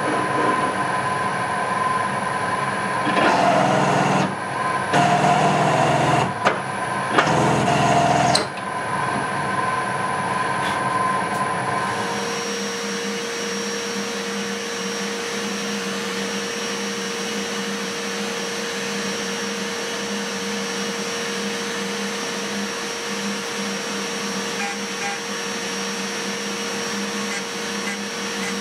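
Drill press running and cutting a 90-degree countersink into a steel part, in three louder spells of cutting. About 12 seconds in it gives way to a CNC milling spindle at 12,000 rpm pocket-milling C45 steel with a 6 mm four-flute Holex ProSteel end mill, a steady, even cutting hum with a constant tone.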